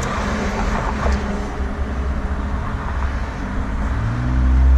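Car and road traffic noise with a steady low rumble. Near the end an engine's hum swells and grows louder.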